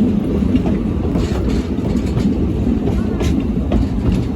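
Train running along the line: a steady low rumble of the moving coaches, with a few sharp wheel clicks over the rail joints.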